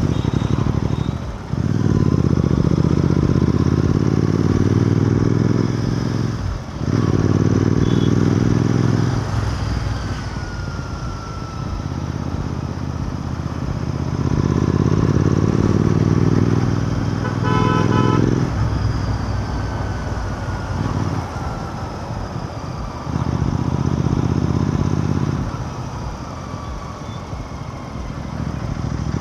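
Royal Enfield Continental GT 650's parallel-twin engine on the move, surging on the throttle several times with short sharp drops in between and quieter stretches where it eases off. A vehicle horn sounds briefly a little past halfway.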